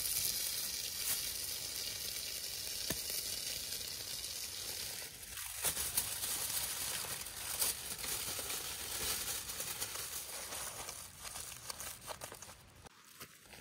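Hot frying pan sizzling steadily over a campfire, with aluminium foil crinkling and rustling from about halfway through as meat is wrapped in it. The sound grows quieter near the end.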